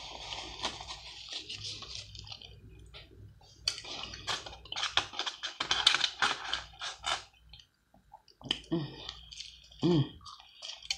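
Close-miked eating sounds: a paper napkin rustling for the first couple of seconds, then aluminium foil crinkling and crackling for a few seconds as a soft taco is lifted out of its foil wrapper, then biting and chewing near the end.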